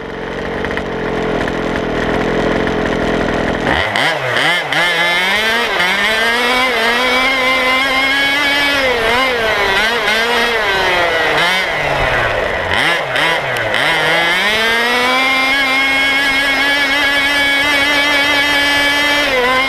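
FG Baja 4WD RC buggy's two-stroke petrol engine, recorded from a camera mounted on the buggy. It idles steadily for about four seconds, then revs up as the buggy drives off. Its pitch rises and dips with the throttle several times, then holds high near the end.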